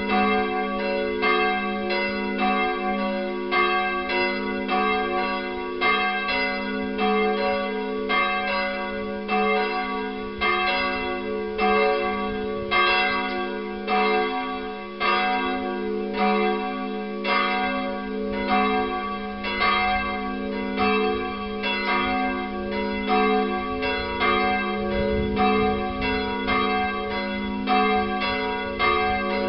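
Peal of 19th-century cast steel church bells from the Bochumer Verein swinging and ringing together, a steady run of overlapping clapper strokes with long ringing tones.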